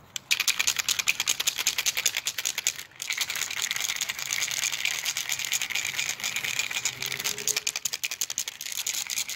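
Aerosol spray paint can being shaken hard, its mixing ball rattling in fast, steady clicks, with a short break about three seconds in. The paint is being mixed before spraying because the can had not yet been shaken.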